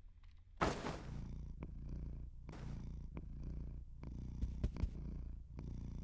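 A cat purring steadily in a low, pulsing hum, with a brief rustle near the start.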